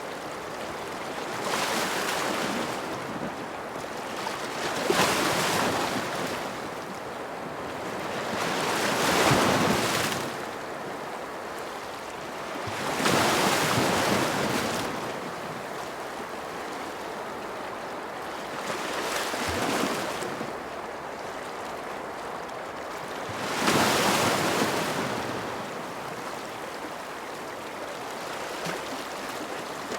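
Ocean waves breaking, the surf swelling to a loud rush and falling back about every four to five seconds over a steady hiss of water.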